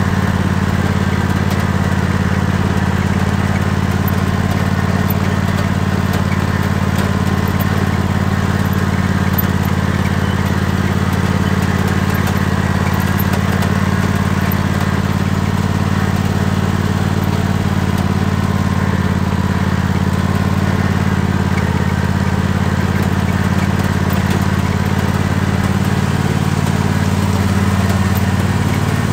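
Tractor engine running steadily as the tractor drives along, its pitch shifting slightly near the end.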